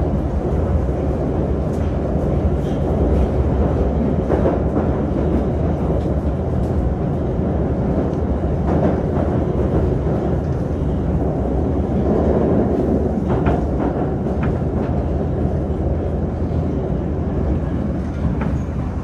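Moskva-2020 metro train running at speed through a tunnel: a steady rumble of wheels on rail, with a few light clicks.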